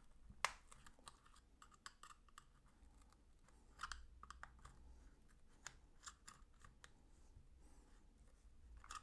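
Faint, scattered clicks and scrapes of screwdriver tips prying at the seam of a Seagate One Touch portable hard drive's case, with sharper ticks about half a second in and near four seconds in.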